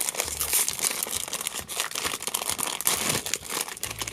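Plastic blind bag crinkling and tearing as it is ripped open and pulled apart by hand: a dense, irregular run of crackles.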